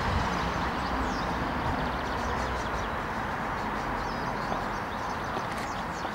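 Steady outdoor background noise, a low rumble with hiss, with a few faint high bird chirps.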